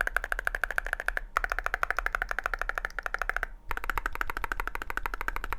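Rapid typing on a Chilkey SF60 hall-effect keyboard with WS Poseidon magnetic switches, CNC aluminium keycaps and an aluminium case: fast, even key clicks with two brief pauses.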